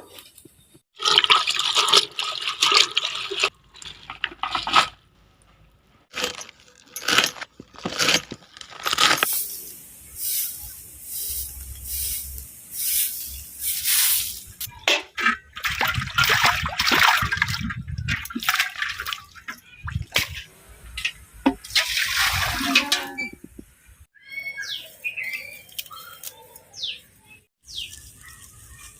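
Water splashing and pouring in irregular bursts, as when produce is rinsed by hand in a basin. Small birds chirp over it near the end.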